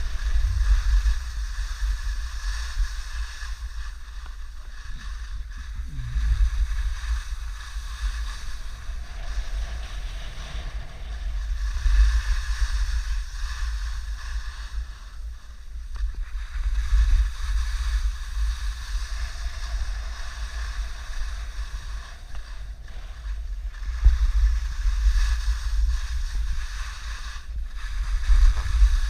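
Wind buffeting the microphone in gusts, a rumble that swells and fades, over a steady hiss.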